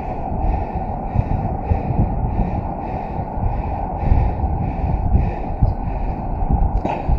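Heavy, rhythmic breathing close to the microphone, about one and a half breaths a second, over uneven low thumps. A single sharp click comes near the end.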